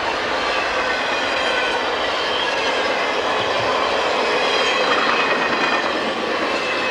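Conrail freight train passing close at speed: diesel locomotives go by, then the cars roll past with a steady rush and rail clatter of the wheels.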